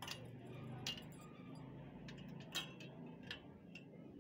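A few faint, sharp clicks or clinks, irregularly spaced, over a low steady background hum.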